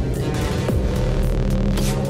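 Electronic dance music with a heavy bass line and a steady beat.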